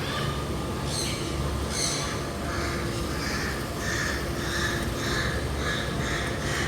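A bird giving harsh, cawing calls: two louder calls about a second in, then a run of calls repeating about twice a second, over a steady low rumble.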